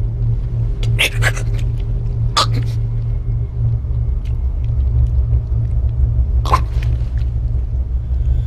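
A low, steady drone in the film soundtrack, with a few short, sharp gasps from a wounded man lying on the floor: two about a second in, two more near two and a half seconds, and one at about six and a half seconds.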